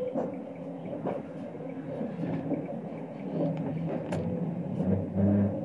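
Running noise of a 25T passenger sleeper coach on the move, heard from inside the compartment: a steady rumble from the wheels and rails with a few sharp clicks and knocks, and a louder low hum swelling near the end.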